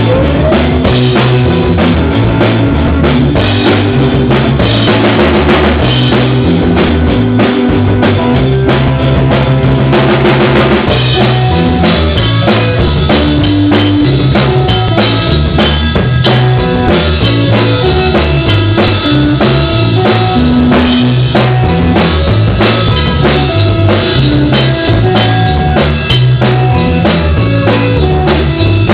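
Loud music with a full drum kit beat and a bass line moving from note to note, playing without a break.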